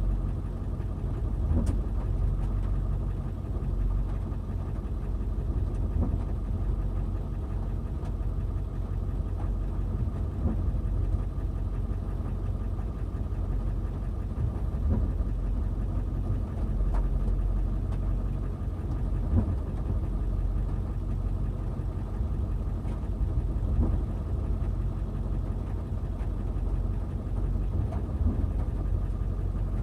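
Backhoe engine running steadily at a low pitch, with faint sharp knocks every few seconds.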